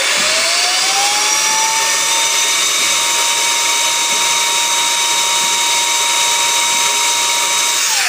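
Bolde Smart Hoover Aquaman wet-dry floor cleaner's suction motor running on low speed with the airway plugged by hand. Its whine rises over the first two seconds, then holds steady, and starts to wind down right at the end as the blocked airflow sets off the dirty-water-tank-full cutoff.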